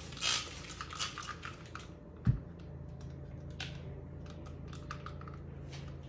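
Trigger spray bottle of disinfectant sprayed onto a countertop: a few short hissing squirts in the first two seconds. Then a single thump a little over two seconds in, scattered light clicks and knocks of handling, and a low steady hum that sets in after the thump.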